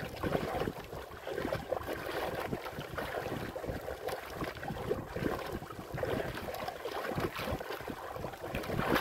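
Choppy sea water slapping and splashing against the side of a small wooden outrigger boat, with wind buffeting the microphone in uneven gusts.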